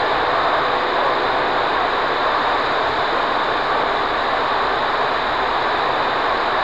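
CB radio receiver static, a steady hiss with no station readable through it: the skip signal from the distant station has faded out.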